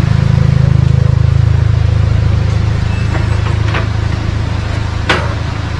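Low steady rumble, loudest in the first two seconds and easing after, with a few light clinks of spoons and forks on plates.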